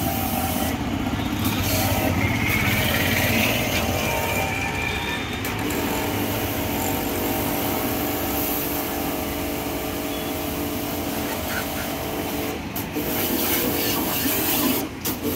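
A 3 HP Btali BT 1800 HPW pressure washer running: its pump hums steadily under the hiss of the high-pressure water jet striking a scooter's bodywork. The hiss breaks off briefly twice near the end.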